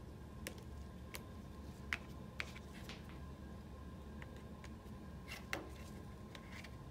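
A few scattered faint clicks and ticks of small hard parts as an output check valve is fitted into a print head's port by gloved hands, over a steady low hum.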